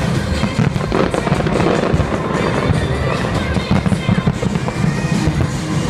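Fireworks bursting one after another, with overlapping bangs and crackles and no pause, over music playing throughout.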